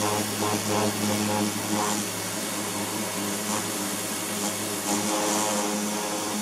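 Kärcher electric pressure washer running steadily, its motor and pump giving a constant hum under the hiss of the high-pressure water jet striking a plastic sun lounger.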